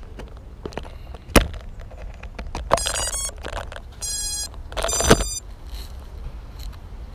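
Bugs 3 quadcopter giving three short bursts of steady, high-pitched electronic tones, with sharp clicks and knocks between them. The loudest knock comes about five seconds in, as the craft comes down onto the rubber-crumb ground.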